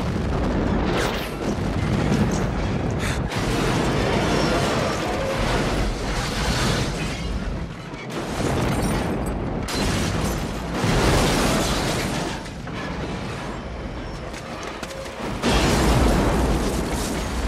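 Film soundtrack of a massive explosion blowing up a floating hideout boat: a continuous, loud blast and rumble with several sudden surges, the loudest starting near the end, with music underneath.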